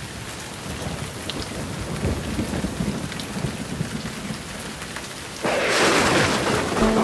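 Rain falling steadily with low thunder rumbling. About five and a half seconds in, the rain jumps suddenly louder.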